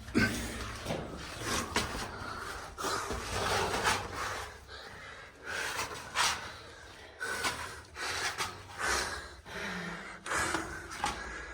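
A person breathing hard and panting, in a run of uneven heavy breaths, from the exertion of a steep uphill hike.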